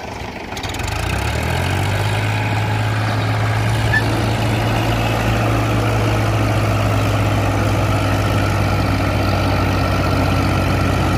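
Mahindra and Powertrac tractor diesel engines working under heavy load, dragging a loaded trolley through soft sand. The engine note rises about a second in, then holds steady and even.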